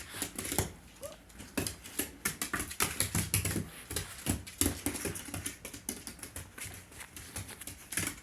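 Irregular light clicks and taps, a few a second, with no steady rhythm.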